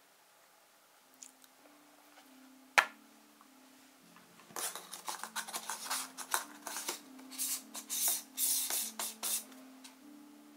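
A single sharp click, then about five seconds of rapid gritty scraping and rasping as a K&F Concept screw-in filter is turned onto the front thread of a camera lens.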